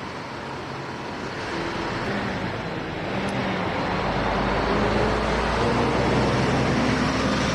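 Road traffic noise from vehicles driving past close by. It swells louder about three seconds in, as a deeper engine rumble comes near.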